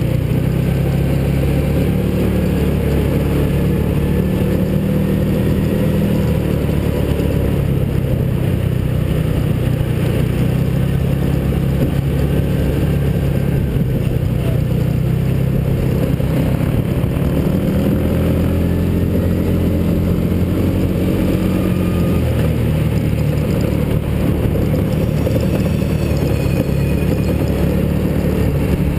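Small engine of a mini hot rod running under way, heard from on board the vehicle. Its pitch shifts up and down with throttle around two-thirds of the way through.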